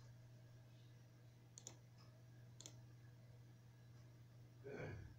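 Two computer mouse clicks about a second apart over a low steady electrical hum, with a short soft rustle near the end that is louder than the clicks.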